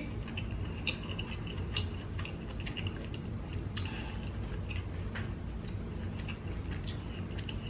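Scattered small clicks and ticks from hands handling shell-on seafood, picked up by a close microphone over a faint steady low hum.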